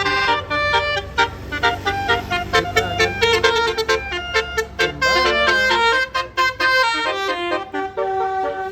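Bus basuri "telolet" musical horn playing a fast tune of short, changing notes over the low rumble of the bus's engine; the rumble fades about five seconds in while the horn keeps playing.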